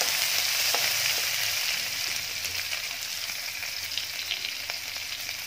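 Chopped onions sizzling in hot ghee in a kadai, stirred with a wooden spoon: a steady frying hiss with a few light clicks of the spoon, growing a little quieter over the seconds.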